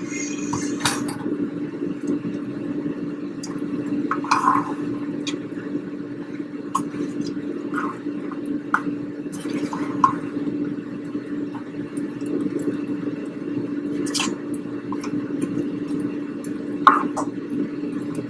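A black spoon stirring a thin, milky pasta soup with green salsa in a nonstick pan: wet sloshing with a few light knocks of the spoon against the pan, over a steady low hum.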